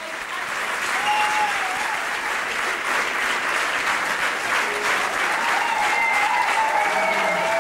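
Theatre audience applauding at a curtain call. The clapping breaks out suddenly and holds dense and steady.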